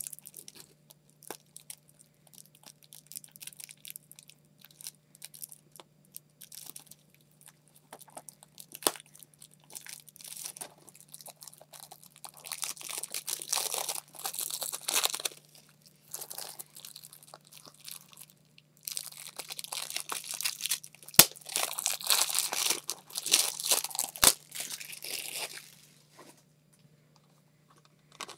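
Plastic shrink-wrap being torn and peeled off a Blu-ray case, crinkling and crackling in irregular bursts. It is loudest in two long stretches in the middle, with two sharp clicks a few seconds apart.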